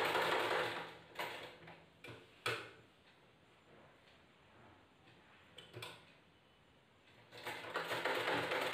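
Domestic sewing machine stitching, stopping about a second in. A few clicks follow while the fabric is repositioned under the needle. The machine starts stitching again near the end.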